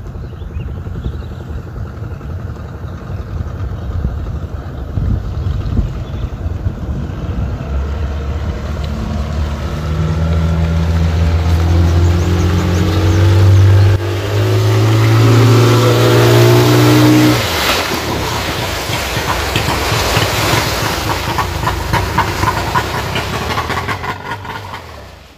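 40 hp outboard motor on a fibreglass boat running with a low rumble, its pitch rising in steps as it is revved from about a third of the way in, then cutting off suddenly about two-thirds through. A steady hiss of wind and water follows.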